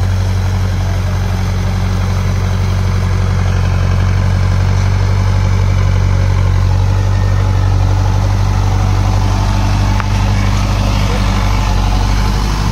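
Tractor diesel engine running steadily under load while driving a rear rotavator that churns through a flooded, muddy paddy field.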